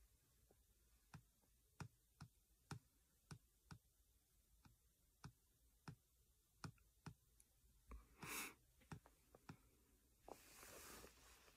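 Faint, irregular fingertip taps on a phone's touchscreen while typing a search, about two a second, with a brief breath about eight seconds in.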